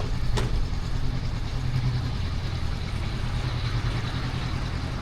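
Steady low engine hum, with a single sharp click about half a second in.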